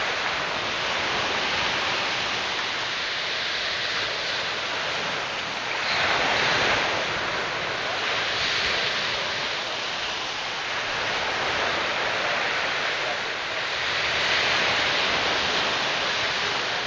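Small, calm sea waves breaking and washing up onto a sandy beach: a steady surf hiss that swells once about six seconds in and again toward the end.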